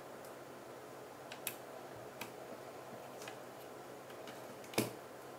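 A few faint, sharp clicks, the last and loudest near the end, from a small screwdriver on the screws of a Vivitar V4000S film camera's body and from the body being handled.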